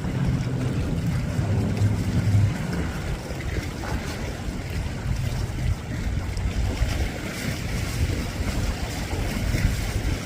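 Wind rumbling on the microphone over open water, with a low motor drone that fades after the first two or three seconds.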